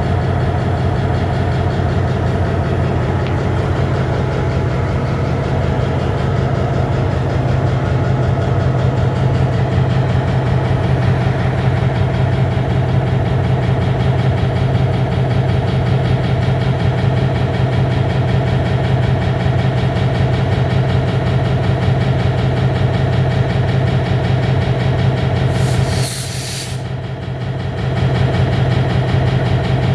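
EMD MP15 switcher locomotive's diesel engine idling steadily. Near the end there is one brief, sharp hiss, and the engine sound dips for a moment.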